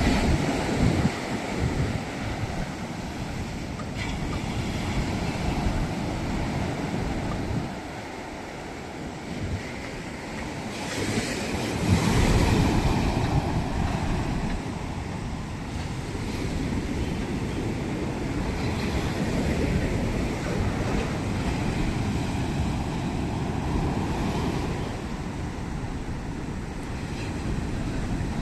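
Sea waves breaking and washing on the shore, swelling in loudness, most strongly about twelve seconds in, with wind on the microphone.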